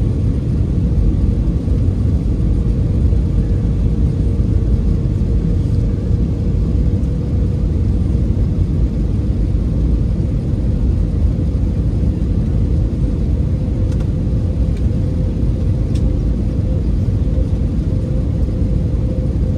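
Airliner cabin noise heard from a passenger seat: a steady, loud low rumble of the jet engines and airflow, with a faint constant hum above it.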